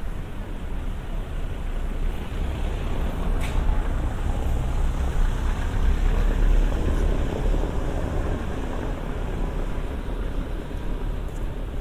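Street traffic: a motor vehicle passing, its low rumble swelling to a peak around the middle and easing off, with one short click about a third of the way in.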